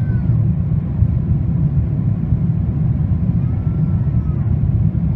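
Steady low rumble inside a Boeing 777-300ER's cabin on approach: GE90 engine and airflow noise heard from a window seat over the wing.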